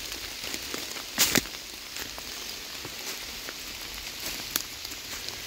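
Heavy rain falling steadily, with scattered drops ticking close on the phone and two louder knocks a little over a second in.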